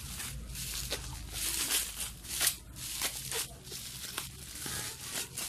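Plastic bubble wrap crinkling and rustling in the hands as it is pulled off a cardboard box, in irregular crackles.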